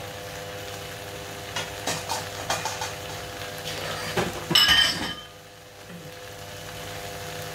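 Kitchen clatter over a frying pan of pad thai still sizzling: scattered clinks of utensils against pans, the loudest a sharp ringing metal clink about four and a half seconds in, after which the sound drops quieter.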